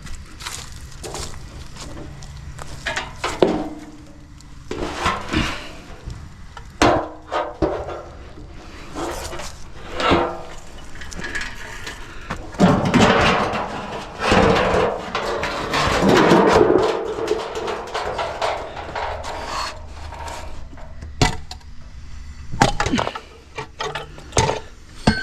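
Curbside scrap, bed-frame pieces among it, being handled and loaded: a string of irregular knocks and clanks, with a few seconds of continuous clatter about halfway through.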